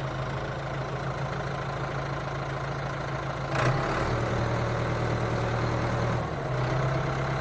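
A small motor running steadily with a low hum. Its pitch shifts slightly about three and a half seconds in and again near the end, with a brief rattle at the first shift.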